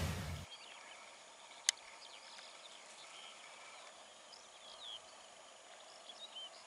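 Faint birds chirping, with many short high chirps scattered throughout. A loud rush of noise dies out about half a second in, and a single sharp click sounds just under two seconds in.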